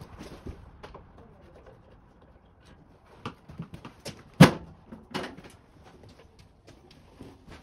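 Footsteps on concrete, then sharp metal knocks and rattles as the sheet-metal service panel of a Daikin outdoor air-conditioner unit is worked loose and pulled off; the loudest knock comes about four and a half seconds in, with another just under a second later.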